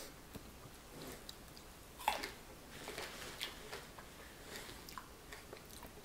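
A person chewing and biting crunchy food close to the microphone: scattered crunching clicks, the sharpest crunch about two seconds in.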